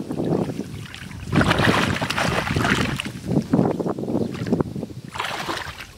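Shallow water sloshing and splashing in irregular bursts, stirred up by someone fishing by hand in a rice-field pool.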